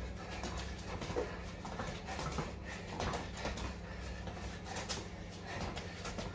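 Quick footsteps: trainers tapping and scuffing on a concrete floor in an irregular run of short knocks during a fast-feet footwork drill, over a steady low hum.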